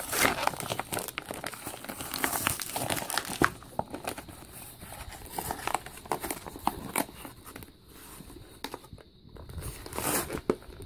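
Plastic packaging crinkling and crackling as a smoke detector is pulled out of it. The crackle is dense for the first few seconds, then turns to lighter, scattered rustles with a brief lull.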